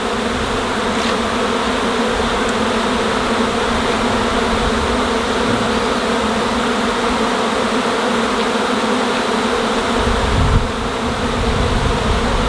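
A swarm of honey bees buzzing loudly and steadily: thousands of bees in the air around a hive box. A low rumble joins in about ten seconds in.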